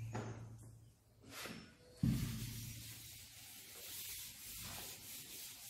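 A knock about two seconds in, then faint, uneven rubbing and scraping of a hand and chalk against a chalkboard as it is wiped and written on.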